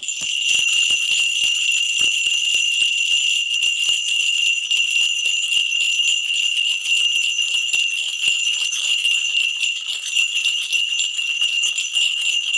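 Korean shaman's ritual bell rattle (mugu bangul) shaken without pause: a dense, steady jingling with a high ringing tone, as used to call the spirits for a divination reading.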